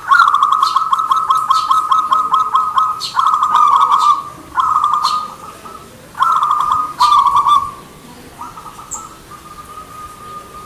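Zebra dove (perkutut) cooing: a long rolling, trilled phrase, then about five shorter trilled coos with short gaps, ending in a faint drawn-out coo.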